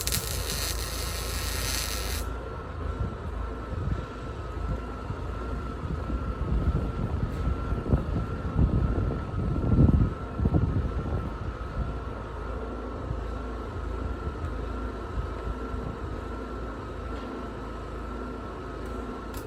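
A machine engine running steadily with a low rumble and a faint, slightly wavering high whine, swelling louder for a few seconds around the middle.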